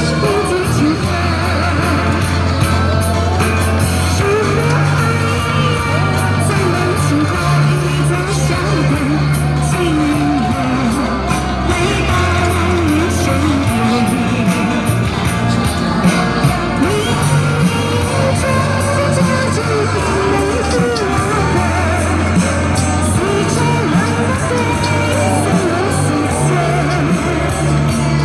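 A singer performing a song over backing music, with held bass notes that change every few seconds beneath the vocal melody.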